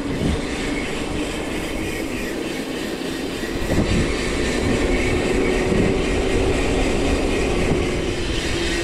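YT Decoy electric mountain bike being ridden on a dirt trail: steady tyre and trail rumble with a few knocks, and a steady whine from about four seconds in.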